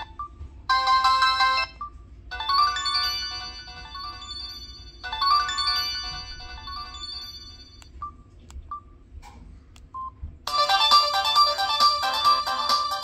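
Preloaded polyphonic ringtones playing on a Samsung SGH-T249 phone. A melodic ringtone plays in phrases with short gaps between them, then a few short single beeps sound. About ten and a half seconds in, a louder, busier ringtone begins.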